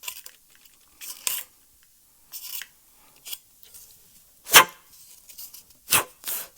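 Fine abrasive paper rubbing around the edge of a hole drilled in a carbon-fibre pole section, smoothing off its sharp edge, in short irregular scraping strokes with one louder stroke about halfway through.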